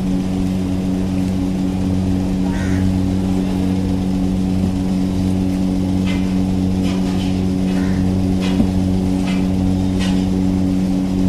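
Steady machine hum, a low drone that does not change, with a few faint ticks in the second half.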